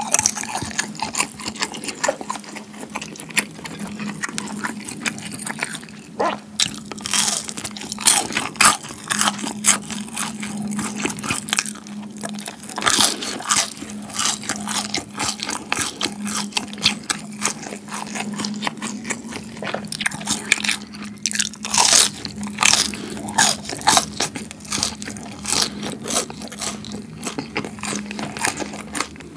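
Close-miked chewing of food: wet, crunchy mouth sounds with frequent sharp clicks at an irregular pace, over a steady low hum.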